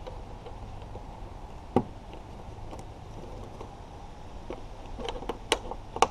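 Plastic clips and trim of a 2014 Jeep Cherokee's front bumper cover clicking and snapping as they are pried with a screwdriver and pulled by hand. One click comes about two seconds in, then a quick cluster of sharper snaps near the end.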